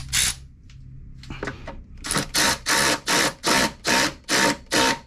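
Ratchet with a 10 mm socket tightening the small bolts that hold the washer fluid reservoir. A few loose clicks and knocks come first, then about two seconds in it settles into steady ratcheting in quick strokes, a short rasping burst about three times a second.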